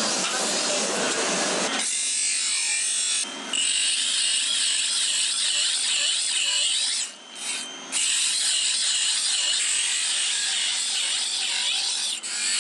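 Saw-blade steel knife blanks being ground on a spinning motor-driven grinding wheel: a steady, high scraping hiss that starts about two seconds in, dropping away briefly once and then twice in the middle as the blade is lifted off the wheel.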